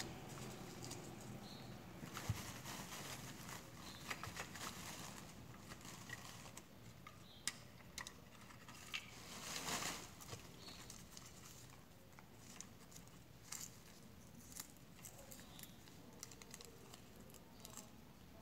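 Faint handling noises of a roll of paper price labels being unwound and its strip pulled and fiddled with: scattered small clicks and light rustling, with a brief louder rustle about ten seconds in as the strip is pulled out.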